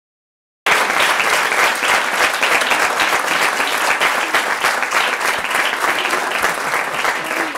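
Audience applauding: dense, steady clapping from a large crowd that cuts in abruptly just under a second in.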